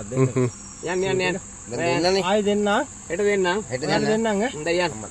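A man's voice talking in short phrases, over a steady high-pitched drone of insects.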